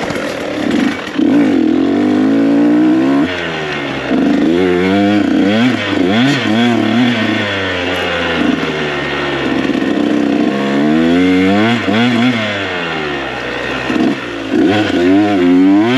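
KTM 125SX dirt bike's two-stroke engine being ridden hard, revving up and dropping back again and again as the rider works the throttle and gears. Its pitch climbs and falls every second or two.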